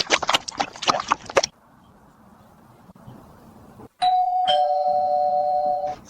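A rapid flurry of sharp knocks or clatter in the first second and a half. About four seconds in, a two-tone doorbell chime rings: a higher tone, then a lower one half a second later, both held for about two seconds before cutting off.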